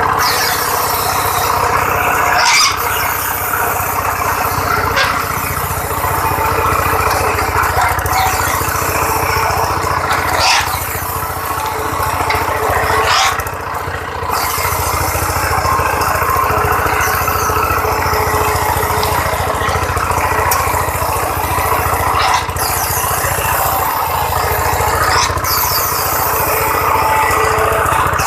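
Broom-handle production machine running steadily, with a loud continuous mechanical noise. A few brief sharp clattering sounds cut through it several times.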